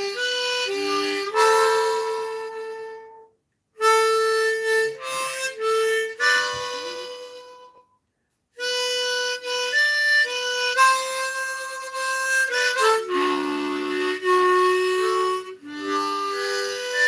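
Harmonica playing a tune in three phrases, with held notes and chords, stopping briefly about three and a half seconds in and again about eight seconds in.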